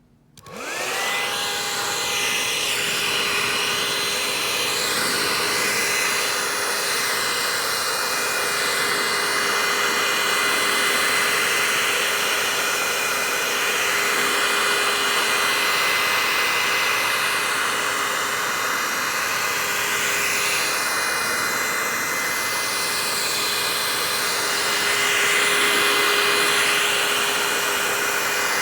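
Iteracare handheld warm-air wand switched on, its fan spinning up with a rising whine over about a second, then blowing steadily: a loud, even rush of air with a steady whine, used to heat the back of an iPad over its battery.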